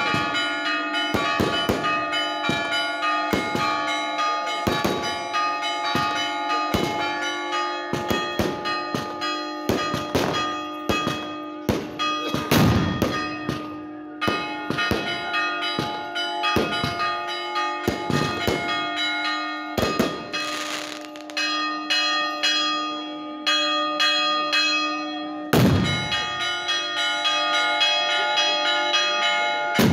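Church bells rung in a rapid, irregular peal, strokes coming several times a second while the tones ring on underneath; a few heavier strokes stand out, the loudest about 25 seconds in.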